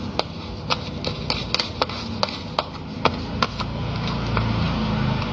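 A stirring utensil clicking and tapping against the cup while mixing slime: a dozen or so sharp, irregular taps, thinning out after about three and a half seconds.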